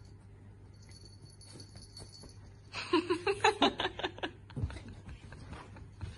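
A person laughing in a quick run of short bursts about three seconds in, lasting a little over a second.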